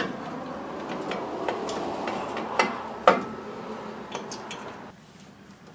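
Steel drum-brake parts clinking and knocking as a brake shoe and its hardware are handled and set into place: a few sharp metallic clicks, the loudest about three seconds in, fading out near the end.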